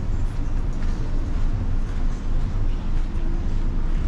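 Wind buffeting the microphone on a ship's open deck: a steady, uneven low rumble.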